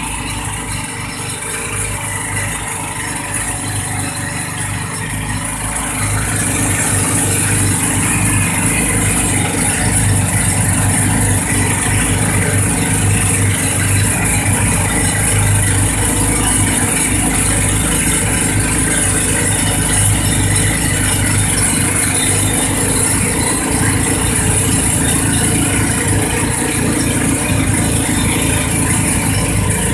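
A motor running steadily with a rattle, getting louder about six seconds in.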